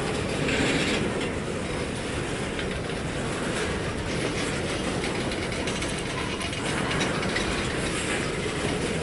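Freight train cars rolling past at steady speed, the wheels and couplings rattling and clacking over the rails without a break.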